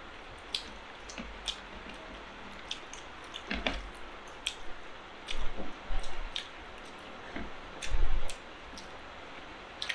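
Mukbang eating sounds: chewing, and hands squishing and mixing chicken biryani rice on plates, with many small scattered clicks and a few louder dull thumps.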